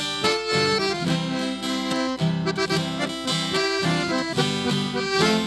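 Accordion playing an instrumental break between sung verses of a sertanejo song, over a strummed guitar accompaniment.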